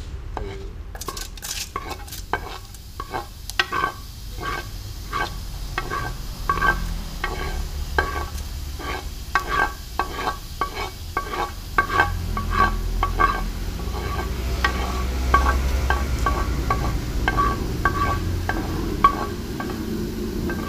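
Chopped chillies and shallots scraped off a mortar plate into an aluminium saucepan, the stone pestle and plate rim knocking against the pan about one to two times a second. Each light tap rings with a short metallic note, over a steady low rumble.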